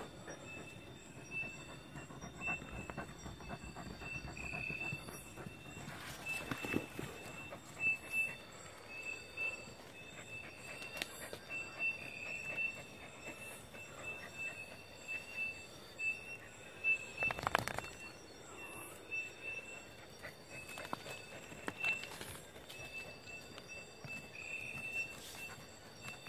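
A dog digging at the dirt of a burrow, with irregular scrapes and knocks of earth and a louder scrape about two-thirds of the way through. A steady, high pulsing trill runs behind it throughout.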